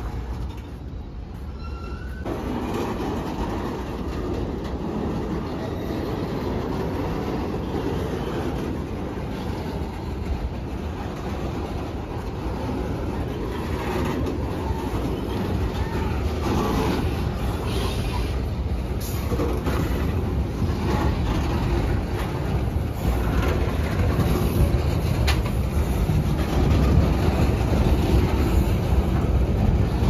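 Container freight train's wagons rolling past close by: a steady rumble of wheels on rails with scattered clicks, starting up about two seconds in and growing louder toward the end.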